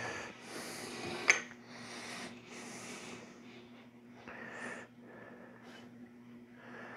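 Soft breathing close to the microphone, a puff every second or two, with light rubbing and a sharp click about a second in as the table saw's fence is handled and set. A low steady hum runs underneath; the saw itself is not running.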